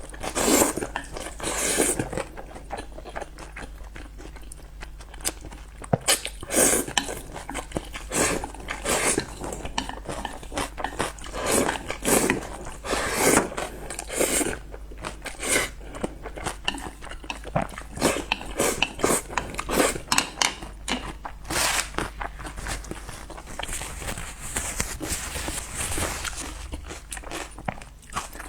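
Close-miked eating of spicy noodles: chewing and biting, with many irregular short smacks and clicks. There is a longer noisy stretch about three-quarters of the way through.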